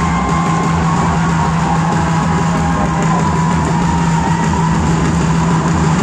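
Loud, steady din of a large stadium crowd with music playing over it.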